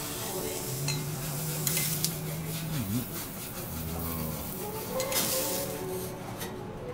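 Metal teppanyaki spatulas scraping and tapping on a ceramic plate as seared lobster is slid off them, with a few short strokes about two seconds in and again about five seconds in. Behind them is a faint griddle sizzle that dies away near the end.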